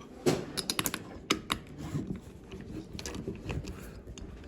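Close handling noise from hands working on a door lock's plastic and metal parts: a string of irregular small clicks and taps with light rustling, busiest in the first second and a half.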